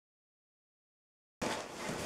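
Dead silence, then about one and a half seconds in, room noise with rustling and handling sounds cuts in abruptly, as a bag is rummaged through.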